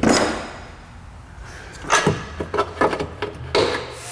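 Tools and metal parts being handled under the car: a short hissing scrape at the start, then a run of quick knocks and clicks about two seconds in.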